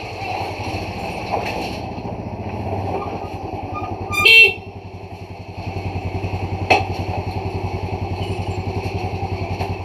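Motorcycle idling, with one short honk of its horn about four seconds in, the signal used to open a gate. A sharp click follows a couple of seconds later, and the engine runs on with an even pulsing.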